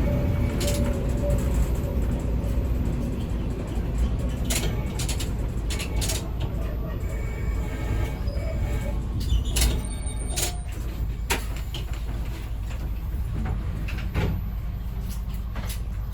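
Ex-JNR KiHa 20-series diesel railcar running along the line: a steady low rumble of engine and running gear, with wheels clicking over rail joints several times, often in quick pairs.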